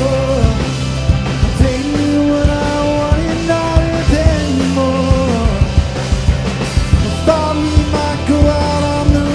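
Live rock band playing a passage with no sung words: drums keeping a steady beat under bass and a held, sliding melody line.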